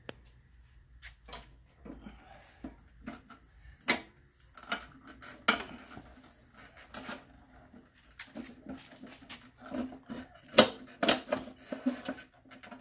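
Metal lawn mower handle clanking and clicking against the deck's mounting brackets as it is worked into place, in a string of separate knocks that grow louder and closer together after about four seconds.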